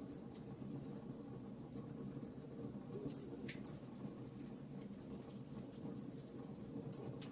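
Wood fire burning in a fireplace: irregular small crackles and pops over a steady low rush of the flames.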